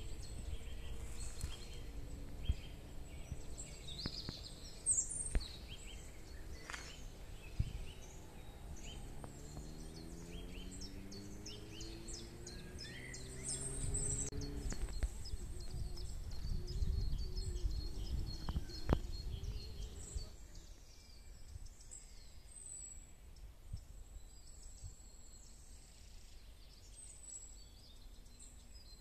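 Wild songbirds chirping and singing over a low rumble, which fades about two-thirds of the way through, leaving the birdsong fainter. A low hum slowly rises in pitch for a few seconds near the middle.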